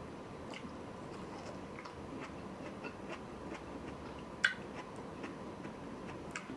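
Faint eating sounds: small scattered clicks of chewing and utensils, with one sharper clink about four and a half seconds in.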